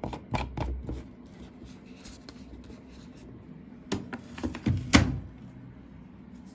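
Knocks and clicks of handling at a washing machine, a cluster in the first second and another about four to five seconds in, the sharpest near the end of that second cluster.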